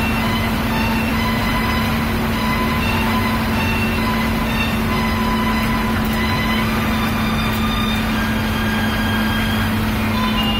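Inside the cabin of an intercity coach bus moving at cruising speed: the engine drones steadily under a constant low hum, mixed with road and wind noise.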